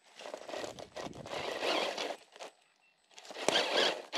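Dry vegetation crunching and crackling as it is pushed through and flattened, in two bursts with a short quiet gap between them.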